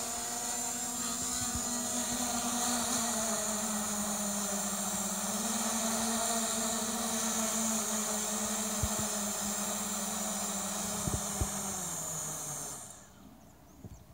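Quadcopter's brushless motors and propellers humming steadily during an automatic return-to-home landing. About a second before the end the motors spin down with falling pitch and stop, as they disarm after touchdown.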